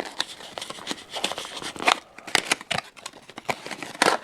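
Plastic packaging crinkling, with a run of small clicks and snaps, as a YJ Guanlong speedcube is unwrapped from its box. Louder snaps come about two seconds in and near the end.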